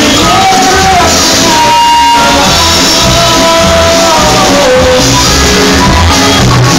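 Live band playing loud in a club, with long held melody notes over a steady pulsing bass beat and some singing.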